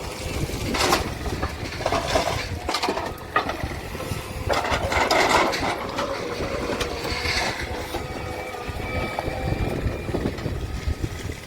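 JCB excavator's diesel engine running steadily, with irregular scraping and crunching bursts as the machine works earth with its bucket.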